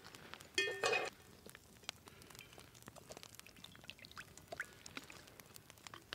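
A metal frying pan set down on a wire grill grate over a campfire with a ringing double clank about half a second in. Then oil is poured from a bottle into the pan, over scattered small crackles from the wood fire.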